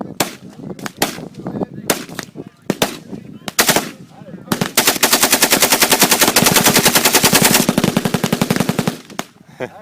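Gunfire from a fully automatic firearm. Several separate shots come in the first few seconds, then one long continuous burst of automatic fire runs for about four seconds and then stops.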